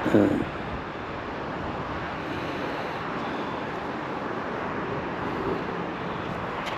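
Steady outdoor road noise: a constant hiss of traffic and wind with no distinct event, rising and falling only slightly.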